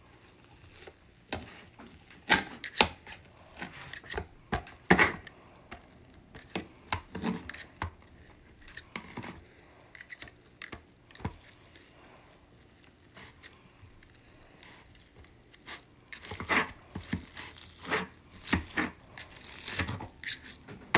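Plastic bear-claw meat shredders tearing apart cooked chicken breasts and knocking against a plastic cutting board. The knocks and tearing strokes come irregularly, grow sparse in the middle and get busier in the last few seconds.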